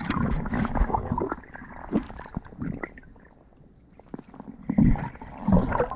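Shallow surf water sloshing and gurgling, heard from underwater and muffled, with scattered small clicks and low rumbles. It turns quieter about halfway through, then surges back with heavy swirls near the end.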